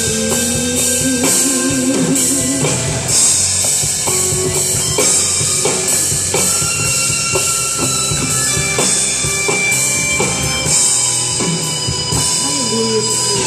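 Live band playing an instrumental passage: drum kit with cymbals running steadily under guitar and other held instrument notes.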